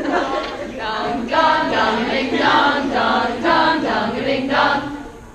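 A group of voices chanting a rhythmic sung refrain in unison, 'dong, dong, a ding dong', about two syllables a second, stopping near the end.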